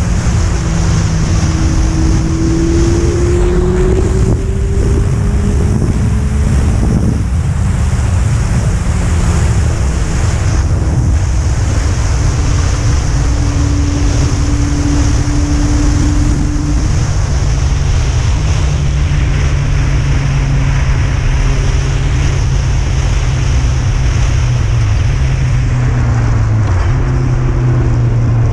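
Yamaha FZS1000 inline-four engine pulling along at road speed under heavy wind buffeting on the microphone. The engine note climbs over the first few seconds, drops sharply about seven seconds in, then holds steady before shifting again near the end.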